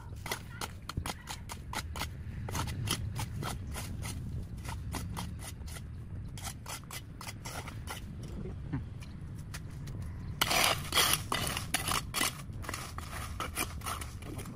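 Hand tools cutting and scraping through overgrown vegetation: a run of irregular sharp snips and clicks over a low steady rumble, with a louder stretch of rustling scrapes about ten seconds in.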